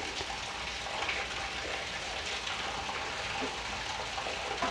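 Stuffed wheat-dough balls (sattu bati) sizzling steadily in a lightly oiled iron kadhai over a very low gas flame, with a few faint crackles.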